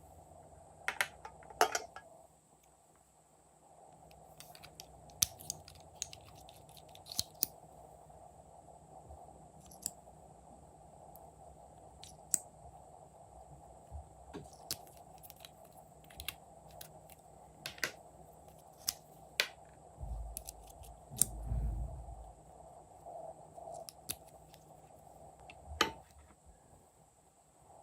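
Glossy slime being kneaded and stretched by hand, giving off irregular sharp clicks and snaps as air pockets pop, with a duller low thump about three quarters of the way through.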